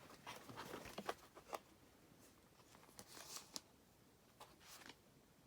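Faint clicks and light scraping of a lock pick working the pins inside a Federal PL90PE padlock's keyway, in short scattered bursts.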